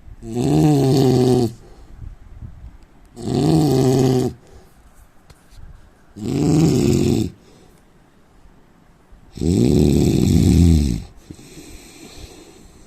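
A man snoring: four loud snores about every three seconds, each lasting about a second, with quiet breathing between them; the last snore, near the end, is the longest.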